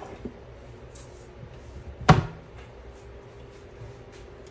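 A single sharp knock about two seconds in, a hard object handled in the kitchen, with a few faint ticks before it and a faint steady hum throughout.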